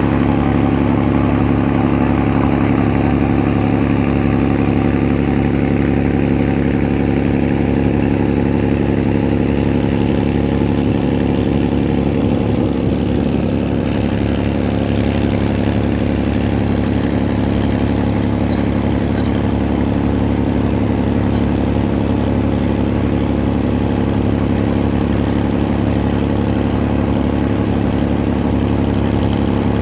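An engine running steadily at an unchanging speed, a low even drone that holds the same pitch throughout.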